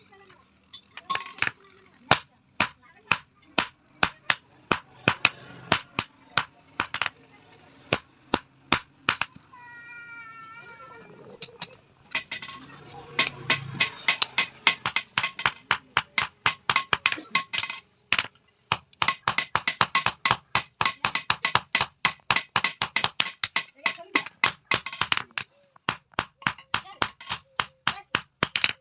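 Hand hammer striking metal on an anvil in sharp, ringing blows, irregular at first, then fast and steady. The hammering pauses about ten seconds in, when a short wavering high-pitched cry is heard.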